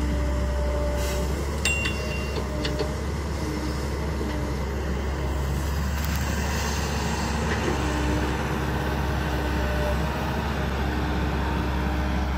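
Caterpillar hydraulic excavator's diesel engine running steadily under digging load, with a tone that rises and fades as the hydraulics work. A few short knocks come about one to three seconds in.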